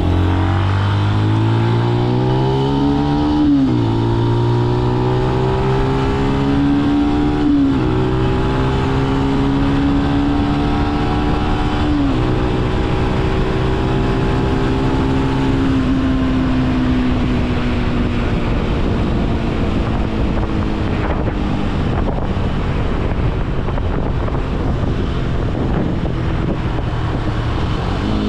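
Benelli BN125 motorcycle's single-cylinder engine accelerating through the gears, its pitch climbing and dropping sharply at three upshifts about four seconds apart. It then settles to a cruise with the tone slowly easing, while wind rush grows louder.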